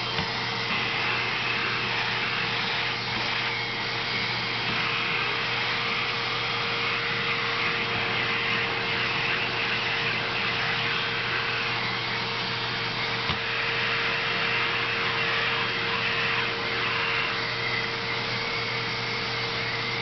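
Upright vacuum cleaner running steadily with its hose and extension wand in use: a constant motor drone with a steady tone that does not change.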